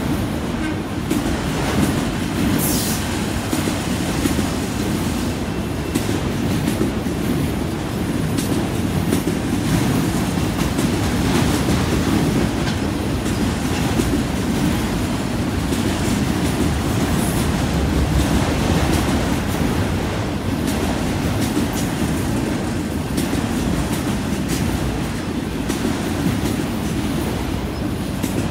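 Freight train of autorack cars rolling past close by: a steady low rumble of steel wheels on rail with a running patter of wheel clicks. Brief high-pitched wheel squeals come about three seconds in and again around seventeen seconds.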